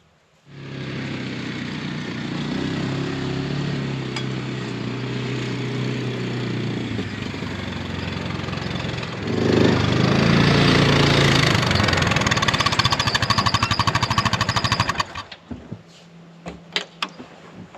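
A small engine starts running, gets louder with a fast, regular pulsing from about halfway, then shuts off suddenly near the end, followed by a few sharp clicks.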